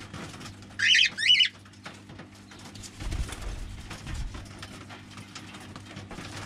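Cockatiel giving two sharp, high calls in quick succession about a second in, over faint chirping from other birds. A couple of low thuds follow a few seconds later.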